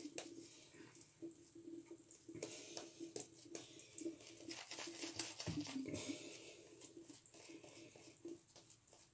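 Shaving brush spreading lather over a bearded face: faint, irregular scratchy brushing strokes as the bristles work the soap through the beard.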